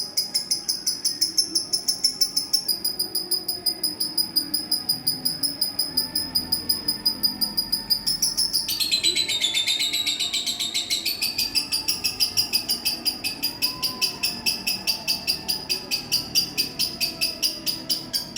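Lovebird giving a long unbroken chatter of rapid, sharp, high chirps, about seven or eight a second; about nine seconds in the pitch dips lower for a couple of seconds, then climbs back.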